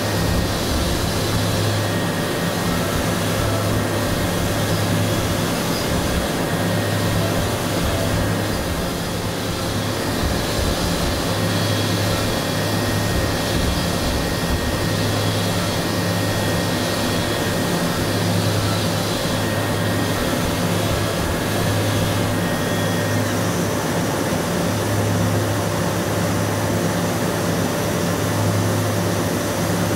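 CNC machining center milling hardened SKD61 die steel with a small end mill spinning at 8,000 rpm. A steady cutting noise carries a constant whine, and a low hum swells and fades every few seconds.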